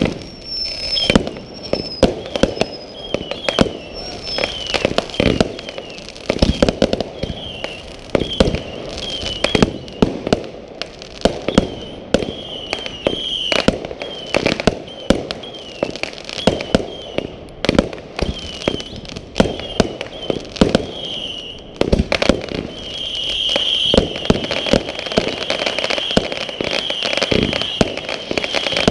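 Fireworks going off in rapid succession: a dense string of sharp bangs and pops mixed with short, high whistles. In the last quarter a steady high whistle runs under the bangs.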